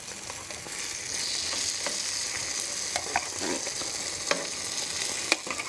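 Diced bacon sizzling in a hot cast-iron pan as canned baked beans in tomato sauce are poured in on top. The sizzle grows louder about a second in, with a few light knocks.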